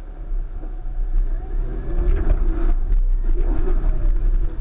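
1999 Subaru Forester's flat-four engine revving in surges under load while the car crawls against a rock step, heard from inside the cabin, with a heavy low rumble. Clunks and clatter come through the body about two seconds in.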